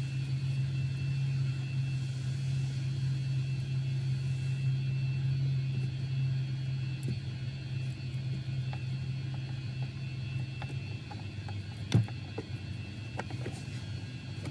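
A steady low mechanical hum runs throughout, with light clicks from a wiring harness being handled. One sharp click stands out about twelve seconds in.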